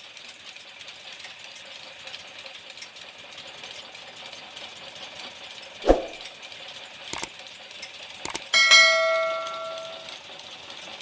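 Metal work in a workshop over a steady machine hum. A dull thud comes about six seconds in, then a few light knocks, then a piece of steel is struck with a clang that rings on and fades over about a second and a half.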